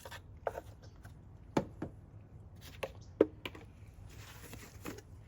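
Plastic motor-oil bottle handled at the engine's filler neck, with a string of light clicks and knocks. From about four seconds in, a soft hiss comes in as 5W-30 synthetic oil starts to pour into the engine.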